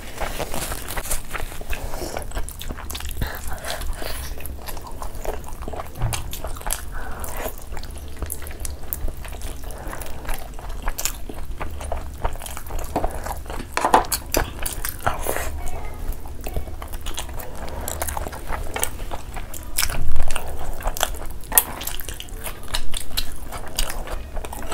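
Close-miked eating: two people chewing and biting meat off the bone in spicy curry, a steady run of wet mouth clicks and smacks, with one louder burst about twenty seconds in.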